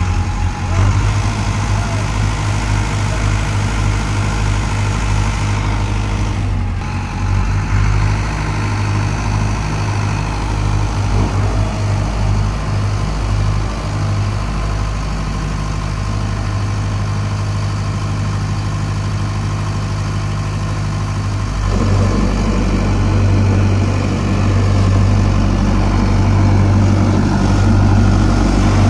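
Tractor diesel engines running steadily as a Mahindra Arjun Novo 655 DI 4WD pulls against a second tractor hitched behind it. About 22 seconds in the engine gets louder and rougher as it strains under load, the rear tyres throwing up dust.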